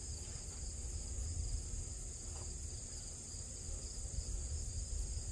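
Steady, high-pitched insect chorus, like crickets in a summer field, with a low rumble underneath.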